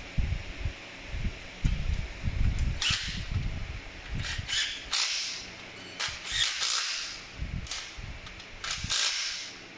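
Cordless driver running in the Torx bolts that fasten a wiper motor to a new wiper linkage, in a series of short bursts starting about three seconds in. Before the bursts, the metal parts are knocked and handled.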